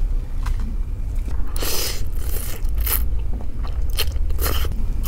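Close-miked eating: a forkful of rice vermicelli in fermented-fish (pla ra) sauce slurped and chewed, with several short, loud slurps from about a second and a half in.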